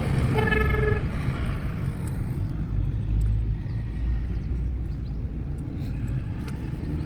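Steady low rumble of motor vehicles, with a brief pitched tone about half a second in.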